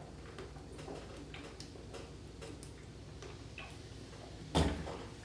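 A person chugging soda: a string of faint clicks and small swallowing and handling sounds, then one short loud burst about four and a half seconds in.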